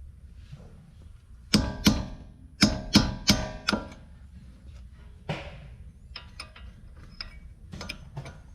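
Metal tool striking a rust-seized front ABS sensor on a 2003 Honda Odyssey: about six sharp, ringing metallic hits in just over two seconds, followed by a scrape and a few lighter clicks. The sensor is being broken out because rust has locked it in place.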